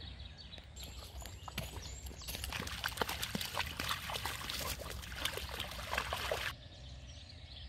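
Two dogs wading and splashing in shallow muddy water at the edge of a dam: a run of small sloshes and drips that stops suddenly near the end.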